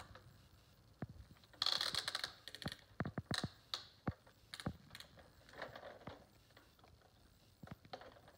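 Hard plastic toy fire truck being handled: a series of sharp clicks from its buttons being pressed and from the truck being tipped and set down, with a brief scraping rattle about a second and a half in.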